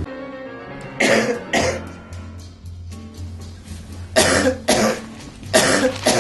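A person coughing in harsh fits: two coughs about a second in, then a run of coughs from about four seconds on, a cough that sounds pretty bad. Background music plays underneath.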